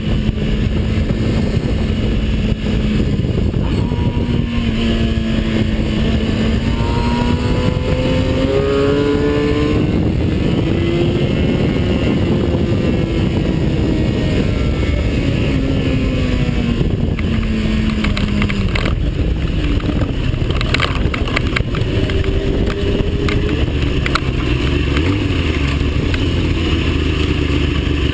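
A vehicle engine under hard use on a racetrack, heard from an onboard camera under heavy wind rush. The engine note holds, climbs over several seconds in steps as it goes up through the gears, then falls away under braking.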